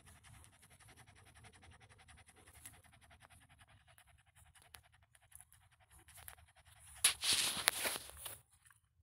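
A dog panting faintly and quickly, then a louder burst of rustling and scraping about seven seconds in as the phone and the dog are moved about.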